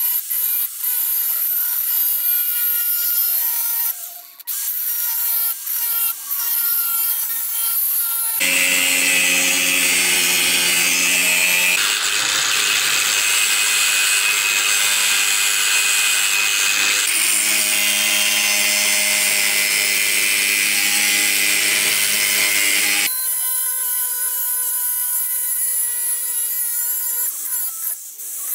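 Cordless angle grinder with a thin cut-off disc running against a steel blade, cutting out and shaping a knife blank. It runs as a continuous high whine with a brief dip about four seconds in. From about eight seconds in to about twenty-three seconds the sound turns lower and fuller, then the high whine returns.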